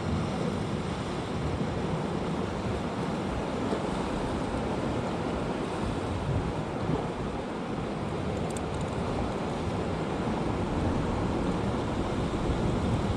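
Steady rush of sea surf, with wind on the microphone.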